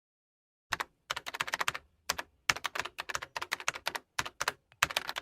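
Keyboard typing: rapid, irregular keystroke clicks, several a second, starting about a second in.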